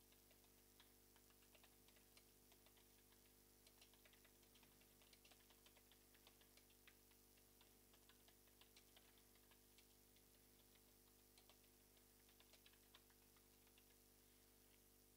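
Faint computer keyboard typing: irregular key clicks in quick runs, thinning out briefly about two-thirds of the way through, over a low steady electrical hum.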